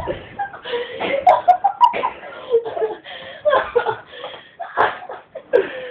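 People laughing, with bits of voice mixed in.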